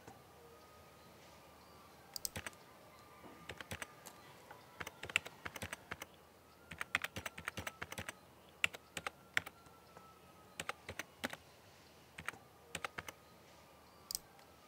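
Typing on a computer keyboard: irregular runs of quick key clicks with short pauses between them, then a single click near the end.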